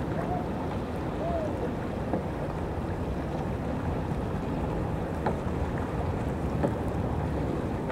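Steady wind buffeting the microphone over choppy ocean water lapping, with a couple of faint short rising-and-falling calls near the start.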